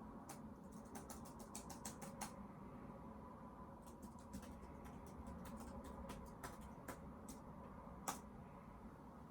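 Computer keyboard keystrokes and mouse clicks, a quick run of taps about one to two seconds in, a few more scattered, and one louder click a little after eight seconds, over a faint steady hum.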